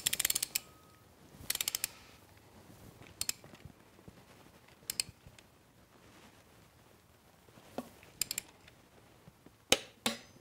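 Socket torque wrench ratcheting on a machine vise screw, in several short runs of rapid clicks with pauses between, as the vise is clamped to a set torque for a jaw-deflection test.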